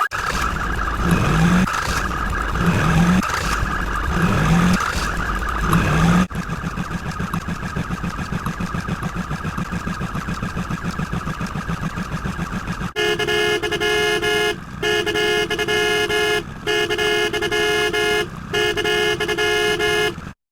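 A string of sound effects ending in a vehicle horn: first a noisy rumble with a low thump about every second and a half, then a steady fast pulsing, and from about halfway on a horn sounding in long blasts with short breaks between them, cutting off just before the end.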